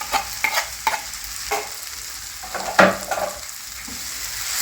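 A cooking spoon stirring and scraping a sizzling omena and tomato stew in the pot, with a run of short knocks against the pot. The loudest knock comes near three seconds in. The coriander is being stirred in at the last stage of cooking.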